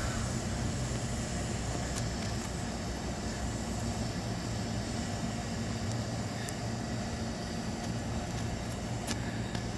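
A Hankyu 1000 series electric train standing at a platform, humming steadily from its onboard equipment while stopped, with a few faint ticks.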